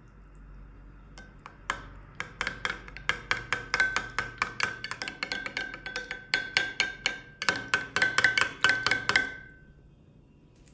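Metal spoon stirring a thin liquid dressing in a small glass bowl, clinking against the glass several times a second with a bright ringing tone; the clinking starts about a second in and stops shortly before the end.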